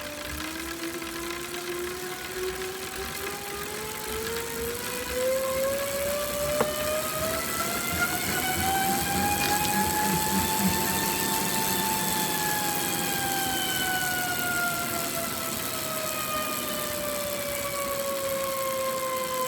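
CycleOps Hammer direct-drive smart trainer whining as it is pedalled. The pitch and loudness rise steadily as the flywheel speeds up, peak about halfway through, then ease down as it slows. A hollow rattle or ticking that the owner says appeared after sprint efforts runs with it, and there are a couple of sharp clicks.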